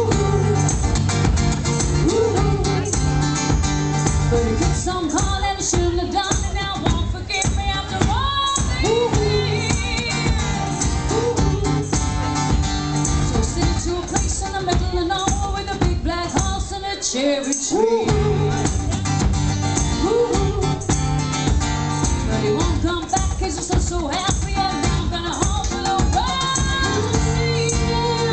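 Live acoustic music: a woman and a man singing over a strummed acoustic guitar with a steady rhythm, which drops out briefly about two-thirds of the way through.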